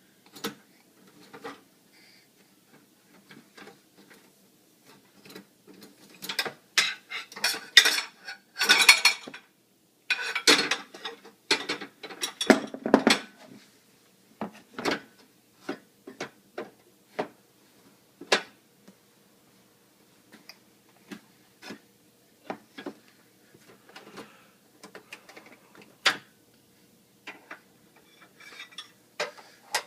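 Metal cutlery and kitchen utensils clinking and clattering in the rack of an open dishwasher as a baby rummages through them. Scattered clinks, with a busy spell of clattering from about six to fourteen seconds in.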